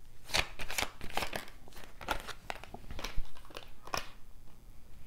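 Tarot cards being handled and laid down on a stone countertop: a run of short, irregular card slaps, flicks and rustles.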